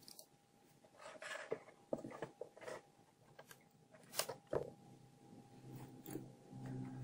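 Handling noise from placing a plastic 18650 battery holder into an MDF speaker box: clicks, knocks and the rustle of wires, with the sharpest knock about four seconds in. A low steady hum comes in near the end.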